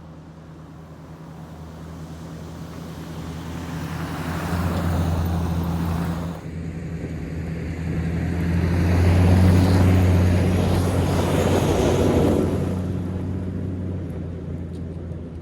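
A motor vehicle's engine running with a steady low hum under broad noise, building to its loudest about ten seconds in and then fading.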